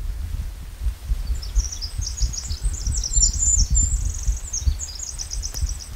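A small songbird singing a long, rapid, high twittering song of trills, starting about a second in and ending near the end, over a louder, uneven low rumble with thumps.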